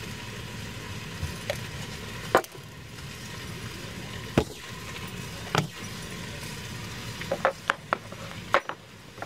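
Glass spice jars and their plastic shaker lids being handled and set down on a table: scattered sharp clicks and knocks, loudest about two and a half and four and a half seconds in, with a quick cluster near the end, over a steady low hum.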